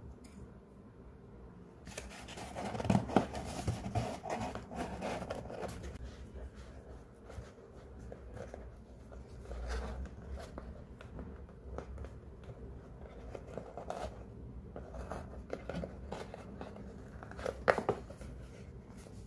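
Close handling noise of a small cardboard mailer box being packed and tied with jute twine: rustling, scraping and small knocks of cardboard and wrapping. It is busiest a few seconds in, with a sharp click about three seconds in and another near the end.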